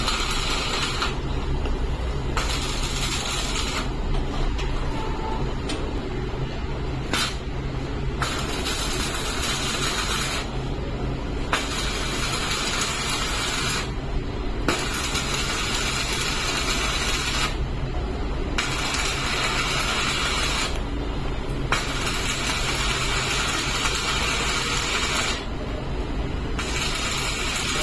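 Electric welding arc crackling and hissing in runs of a few seconds, broken by about seven short pauses, over a steady low machinery hum.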